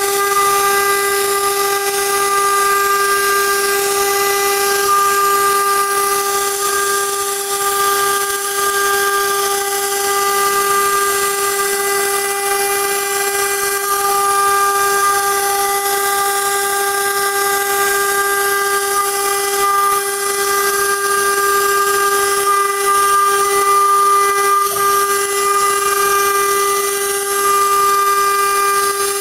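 CNC router spindle cutting and engraving a pattern into a board. It gives a steady, unbroken whine with overtones over a hiss of cutting.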